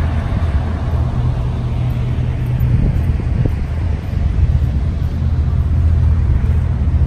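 A steady low engine rumble with a wash of outdoor background noise.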